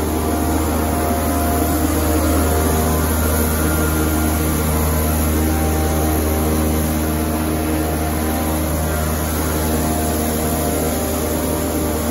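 Finger-less corrugation machine running at speed: a loud, steady mechanical drone with a strong low hum and several steady tones over it.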